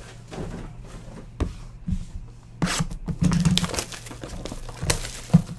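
Foil trading-card packs crinkling and rustling as they are handled, with a few sharp crackles.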